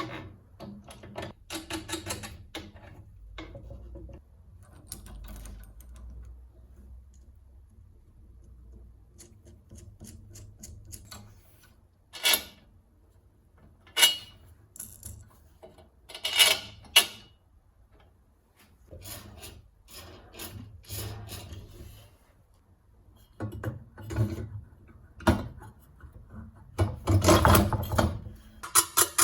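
Intermittent scraping and rubbing strokes of hand tool work, with a few sharp knocks and a dense, louder stretch of scraping near the end.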